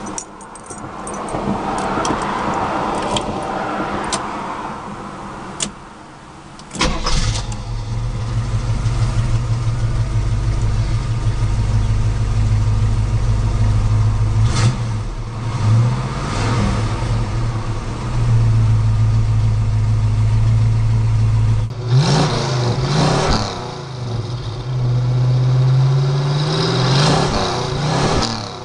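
A 1973 Camaro's original 350 small-block V8 with a two-barrel carburettor fires up about seven seconds in, then runs at a steady idle. It is revved several times, briefly in the middle and again near the end.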